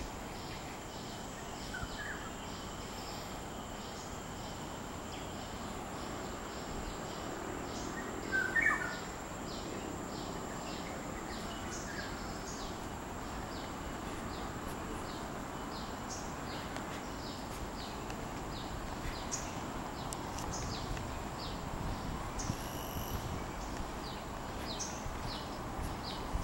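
Tropical forest ambience: a steady high insect drone with an insect chirping about twice a second, and a bird calling briefly about two seconds and about eight seconds in, the second call the loudest sound.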